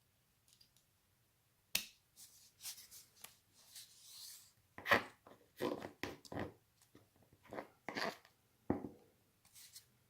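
Small handling sounds at a workbench: a sharp click about two seconds in, a short rubbing sound, then a run of light taps, knocks and scrapes as a small diecast model car and tools are handled while its corrosion spot is filled with super glue and baking powder.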